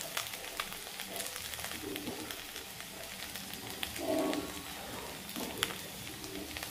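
Batter-coated pumpkin-flower fritters sizzling in shallow oil in a wok-style pan, a steady sizzle with scattered small crackles and pops.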